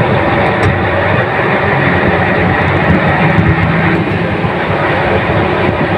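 Grove GMK5130 mobile crane's carrier diesel engine running steadily under hydraulic load while the outrigger jacks level the crane.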